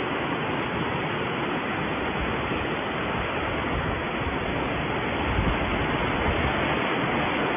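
Steady, even hiss of factory-floor background noise, with no distinct machine strokes or clicks.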